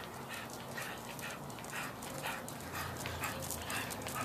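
Pit bull panting hard in quick rhythmic breaths, about two a second, as it strains forward on its leash.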